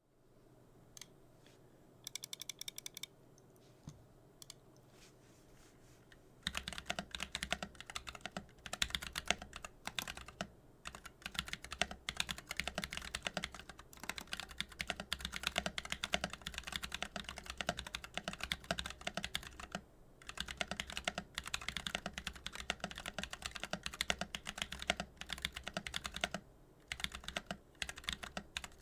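Typing on a Womier YC66 mechanical keyboard with stock Glorious Panda tactile switches in an acrylic case and plate. A few scattered keystrokes and one short quick run of keys come first, then steady fast typing from about six seconds in, with a couple of brief pauses.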